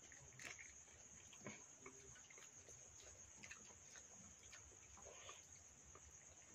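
Near silence, with a faint, steady high cricket trill and scattered soft clicks and smacks of fingers mixing rice in steel bowls and of eating.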